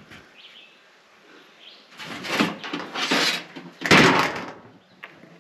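Wooden board scraping and sliding as it is dragged back out of a door opening where it fits too tight, with the loudest scrape about four seconds in.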